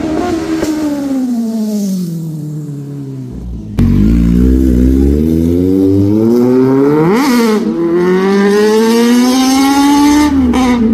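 A superbike's engine revving loudly through its exhaust. The pitch sinks over the first few seconds, then after a sudden jump in loudness about four seconds in, the revs climb, with a quick sharp throttle blip about seven seconds in and another rise near the end.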